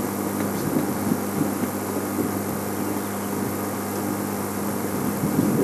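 Safari game-drive vehicle's engine idling, a steady low hum.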